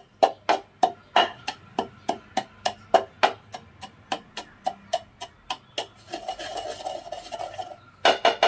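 Wooden pestle pounding naphthalene powder in a wooden mortar, regular knocks about three a second. About six seconds in it switches to grinding, a scraping rub of the powder for nearly two seconds, then a few quick strokes near the end.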